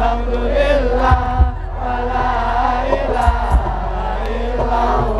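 Live sholawat devotional music: a group of voices chants a melody in unison, with pairs of deep drum beats falling about every two seconds.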